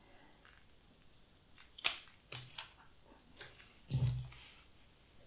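Pruning shears snipping plant stems: a few sharp clicks about two seconds in, then a dull thump on the newspaper-covered table about four seconds in.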